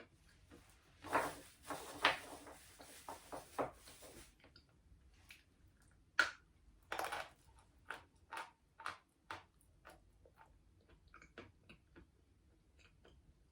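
Close-up crunching and chewing of a lump of 'Barsuk' natural edible chalk: a dense run of crunches in the first few seconds, then irregular single crunches and chews. The chalk is soft and creamy, breaking down to a paste rather than grating on the teeth.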